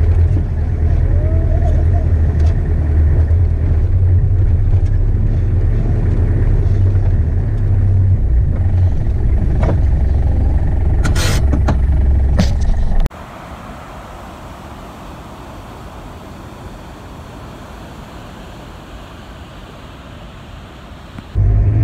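Steady low rumble of a 4x4 driving slowly, heard from inside the cab, with a few sharp clicks a little past halfway. About two-thirds in it cuts abruptly to a quieter, even rush of turbulent water flowing along a canal, and the cab rumble comes back just before the end.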